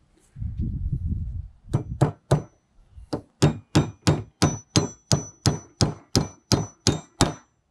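Steel claw hammer driving 6d nails through a steel bracket into a wooden 2x4: a run of about seventeen sharp blows, roughly three a second, starting about a second and a half in. The later blows have a high metallic ring.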